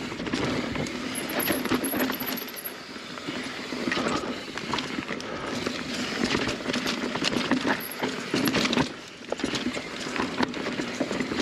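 Mountain bike rolling fast down a rough dirt trail: steady tyre noise on dirt and leaves, with the bike rattling and clattering in frequent sharp clicks and knocks over roots and rocks.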